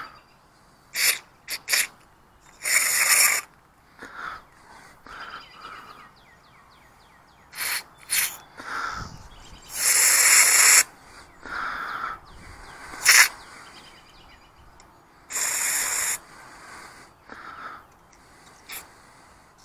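Aerosol carburetor cleaner sprayed through a thin extension straw into a carburetor's passages, in about eight short hissing bursts, the longest lasting about a second.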